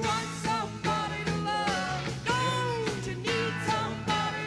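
Live psychedelic rock band playing: electric guitar and bass over a steady drum beat, with vocals.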